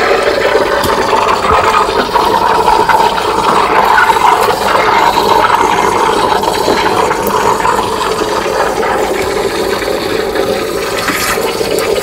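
Steam wand of a Crux 15-bar pump espresso machine steaming milk in a stainless steel pitcher, the wand tip held deep in the milk: a steady, loud hiss.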